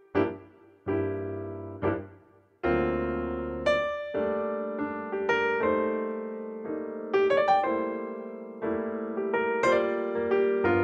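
Background piano music: single notes and chords struck one after another, each ringing and fading before the next.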